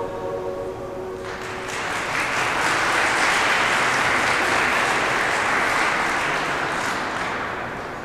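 A choir's final held chord dies away about a second in, and audience applause rises in its place, swells, then tapers off near the end.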